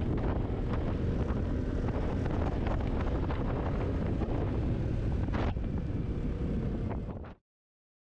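Wind rushing over the microphone of a rider on a Honda PS250 scooter at road speed, with the scooter's engine running underneath. The sound cuts off suddenly near the end.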